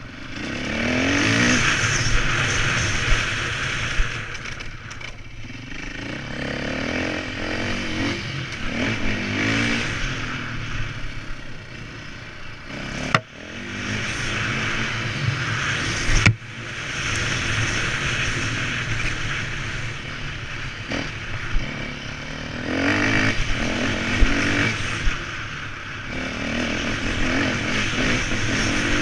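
KTM enduro motorcycle engine revving up and easing off again and again as the bike is ridden over a dirt track. Two sharp knocks come midway, about three seconds apart.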